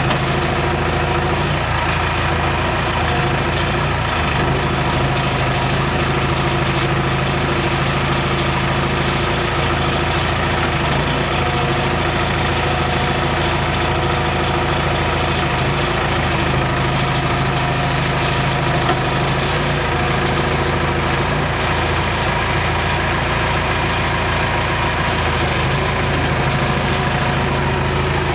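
John Deere 410E backhoe loader's diesel engine idling steadily, with no revving or change in pitch.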